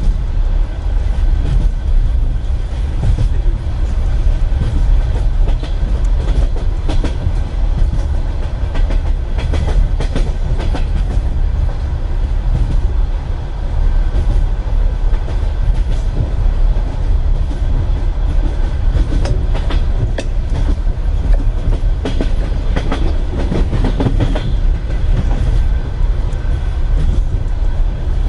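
Wheels of a Russian Railways passenger carriage clicking over rail joints at speed, under a steady low rumble, heard from inside the compartment.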